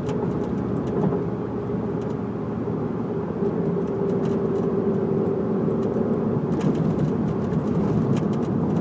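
Inside a moving car, steady road and running noise with scattered sharp ticks and rattles: the abnormal noise coming from the car's rear panel.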